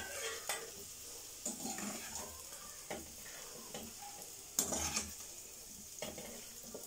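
A slotted steel spoon scrapes and clinks against a steel kadhai and plate several times as fried potato and broccoli stalk pieces are scooped out, with hot oil sizzling faintly underneath.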